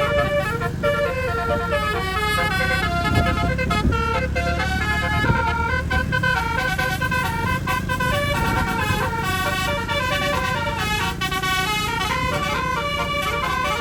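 Telolet bus horn with twelve roof-mounted trumpets playing a quick melody of stepped notes, several trumpets sounding together, with an engine rumbling underneath.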